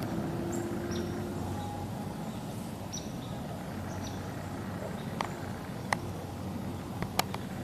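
Quiet outdoor woodland ambience: a steady low rumble with a few short, high bird chirps, then several sharp clicks or snaps in the last few seconds.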